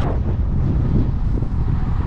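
Wind buffeting the microphone of a camera riding along on a moving road bicycle: a loud, steady low rumble.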